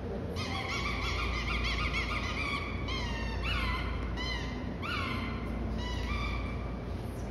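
A dog whining: high, wavering cries that break into a series of short falling yelps partway through.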